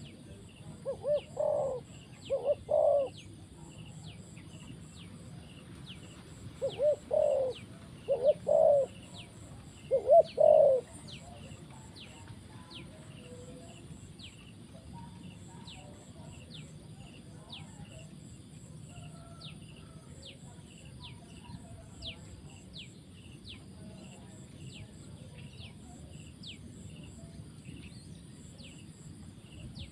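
Spotted dove cooing: three short phrases of two or three low coos in the first eleven seconds, then it falls quiet. Underneath runs a steady series of short high chirps, about one and a half a second.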